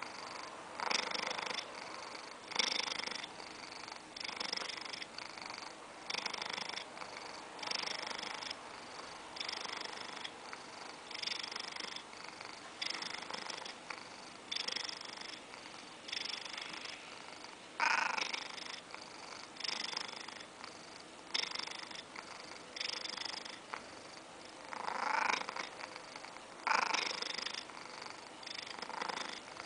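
Siamese cat purring loudly close up, swelling and fading with each breath about every one and a half to two seconds. A few swells in the second half come louder and harsher.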